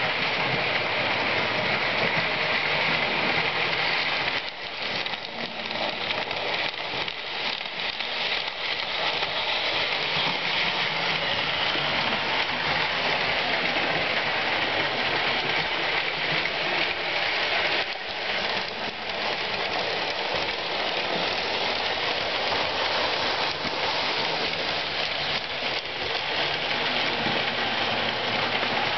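Lionel O-gauge toy trains running on three-rail tubular metal track: a steady metallic rolling rumble and clatter of wheels on the rails.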